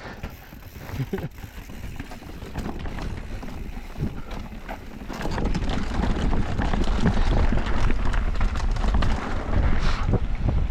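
Wind buffeting an action camera's microphone and the rattle and rumble of an e-mountain bike rolling fast down a dirt trail, growing clearly louder about halfway through as speed picks up.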